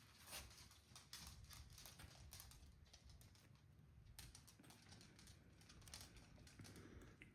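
Faint, irregular light clicks and taps from handcuffed hands at work tying a fishing knot: handcuff and tackle being handled.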